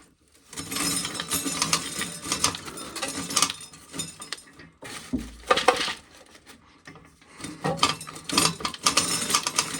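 Dried corn kernels being shelled and rattling and clinking as they fall into a container, in dense runs of small clicks with short pauses between them.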